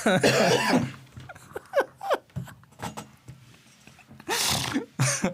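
People laughing without words: breathy laughs with short rising and falling whoops in the first two seconds, a quiet pause, then a loud breathy burst of laughter near the end.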